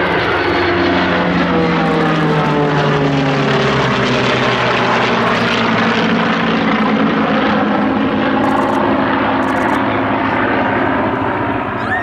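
Formation of a P-51 Mustang, T-28 Trojan, Aero Commander and F-86 Sabre flying past overhead: a loud, steady drone of aircraft engines and propellers. The engine pitch falls over the first few seconds as the formation passes and draws away.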